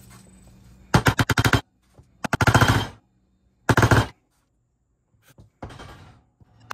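Bursts of rapid, sharp clattering knocks, three loud ones and a fainter one near the end, as the steering cylinder's rod and gland are forced down into the hydraulic cylinder barrel.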